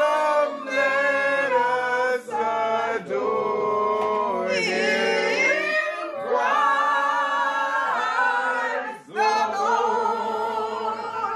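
A small group singing a Christmas carol together without accompaniment, holding long notes and pausing briefly between phrases.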